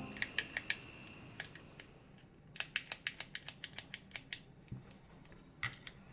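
Sharp, small plastic-and-metal clicks of a Shimano M4000 (Alivio) trigger shifter being worked through its gears after reassembly. There are a few clicks at first, then a quick run of about five a second in the middle, and a couple more near the end.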